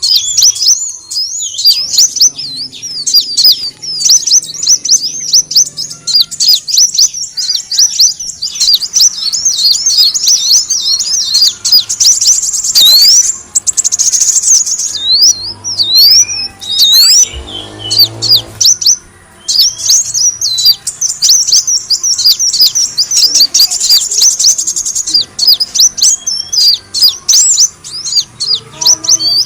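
Kolibri wulung sunbird calling: rapid, high, thin chirps and quick sweeping twitters packed densely one after another, broken only by brief pauses, as played for luring sunbirds.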